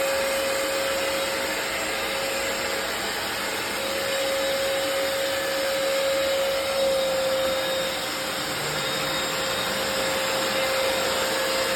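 Hoover FloorMate wet hard-floor cleaner running in wash mode: a steady motor whir with one constant tone.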